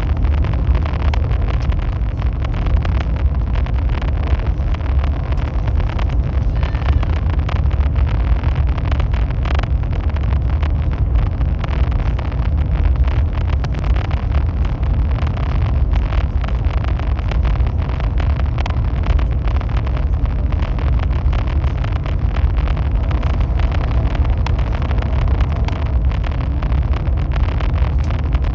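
High-speed train running at speed: a steady, loud low rumble with a rushing noise over it.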